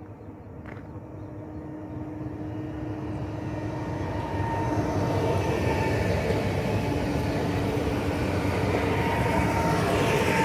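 EN76 (Pesa Elf) electric multiple unit approaching and passing close by, a rumble of wheels on rails growing louder over the first few seconds and then holding loud as the cars go past, with a steady whine above it.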